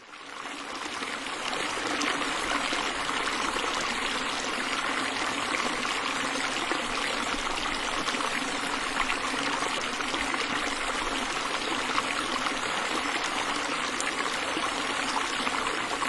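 Steady rush of flowing water, swelling up over the first two seconds and then holding even.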